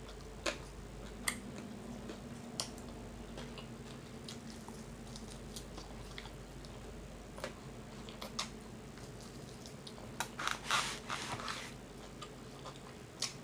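Close-miked chewing and lip-smacking as a person eats chicken wings, with scattered wet clicks and a louder run of smacking about ten to eleven seconds in.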